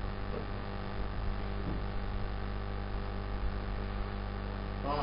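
Steady electrical mains hum with a low hiss underneath.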